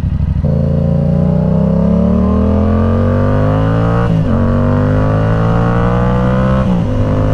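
Yamaha R7's parallel-twin engine breathing through a Yoshimura AT2 full exhaust system, accelerating under load: the note climbs steadily, drops at an upshift about four seconds in, climbs again, and steps down at another gear change near the end.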